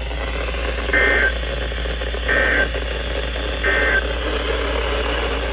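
Emergency Alert System end-of-message signal on a NOAA Weather Radio broadcast: three identical short bursts of high-pitched digital data tones, about 1.3 seconds apart, over steady radio hiss and hum. The bursts mark the end of the warning.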